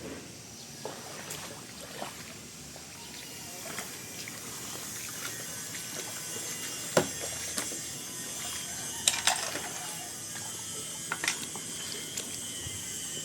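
Creek water trickling and sloshing, with scattered sharp knocks and clacks, the loudest about seven and nine seconds in.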